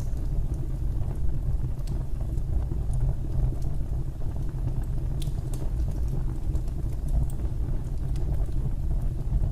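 Fireplace fire burning with a steady low rumble of the flames and scattered faint crackles and pops.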